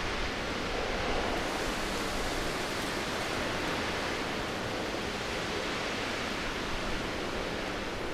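Steady, even rushing hiss of wind during a snowstorm, unchanging throughout.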